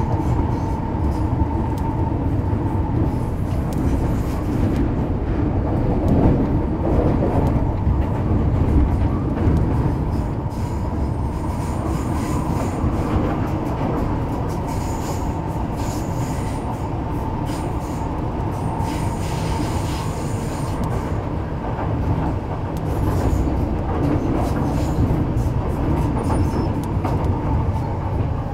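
Metro Cammell M-Train electric multiple unit (car C212) with GEC GTO chopper traction, running at speed between stations and heard from inside the car. There is a steady rumble of wheels on rail, a steady high whine from the chopper, and scattered sharp clicks.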